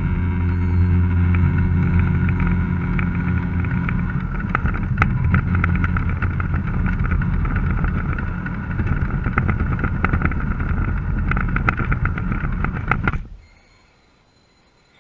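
Garden-scale model train running, a steady motor hum with scattered clicks, that cuts off suddenly near the end.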